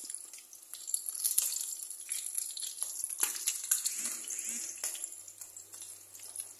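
Battered small fish frying in hot oil in a pan: a steady high sizzle with scattered crackles, easing off a little near the end.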